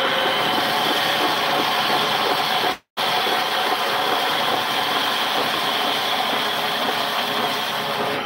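Vertical frame saw running steadily, its blade cutting through a log with a loud mechanical noise and a high ringing whine. The sound cuts out for a split second about three seconds in, then resumes unchanged.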